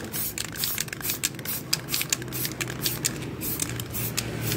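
Aerosol spray-paint can spraying black paint in quick short squirts: a run of brief hisses, several a second.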